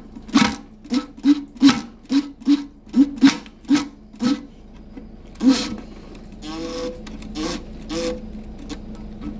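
Cordless impact driver hammering in short bursts, about two a second, on a rusted toilet tank bolt. A louder burst comes about five and a half seconds in, then a softer pulsing run with a steady tone.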